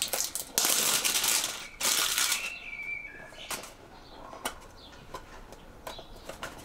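Rustling and crinkling of small-item packaging being handled and picked at to get it open, in three loud bursts over the first two and a half seconds, then quieter scratches and a few sharp clicks.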